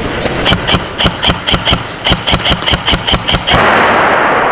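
Airsoft rifle firing a rapid string of about fourteen shots, roughly four or five a second, each a sharp crack with a short high ring. Near the end the shooting stops and a loud steady rushing noise takes over.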